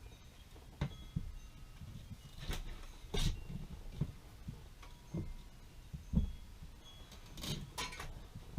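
Scattered clicks and light knocks from a hand wire-rope swage tool being handled and its built-in cutter closed through 1/16-inch galvanized wire rope, about a dozen irregular taps and snaps with no steady sound.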